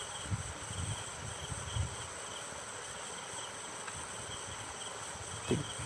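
Crickets chirping in a steady pulsing rhythm, with soft rustling and handling noises during the first two seconds as electrical wires are twisted together by hand.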